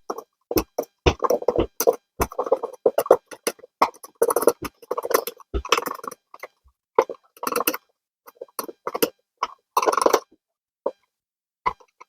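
Small hook tool scraping and clicking against plastic inside the grinder chute of a single-cup bean-to-cup coffee maker, digging out clogged coffee grounds: irregular short scrapes and taps with brief pauses.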